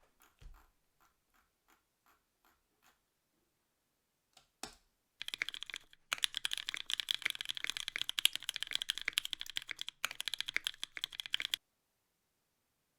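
Typing on a mechanical keyboard: a few spaced single key presses, then fast, continuous typing for about six seconds that stops suddenly.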